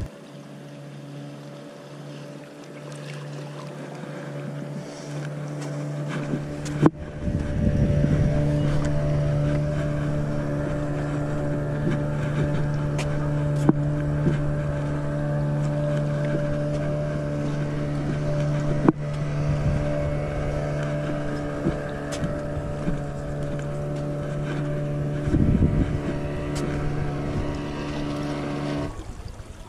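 Boat engine running steadily, a low droning hum that comes up stronger about seven seconds in and stops just before the end, with a few sharp clicks over it.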